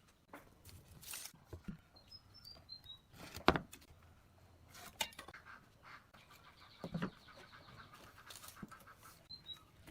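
Scattered knocks and taps, the loudest about three and a half seconds in, with a short run of falling bird chirps about two seconds in and a rapid pulsing trill from about six to nine seconds.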